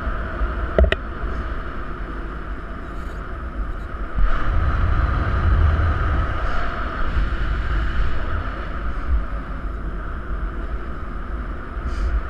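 Wind rushing and buffeting over the microphone of a paraglider pilot climbing on a winch tow, with a short click about a second in and a stronger gust from about four seconds in.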